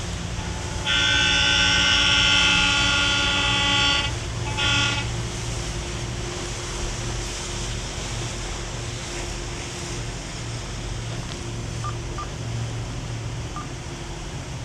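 A horn sounds one long blast of about three seconds, then a short blast soon after: one prolonged and one short blast, the standard signal at a drawbridge opening. Under it the yacht's twin engines drone steadily with wind noise.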